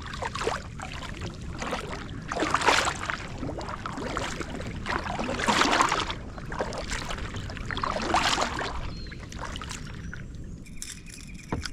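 Kayak paddle strokes: three swishes of water, each swelling and fading, about three seconds apart.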